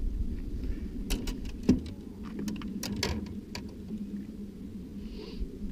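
A quick run of sharp clicks and knocks, hard objects handled in an aluminium boat, with one louder knock about one and a half seconds in.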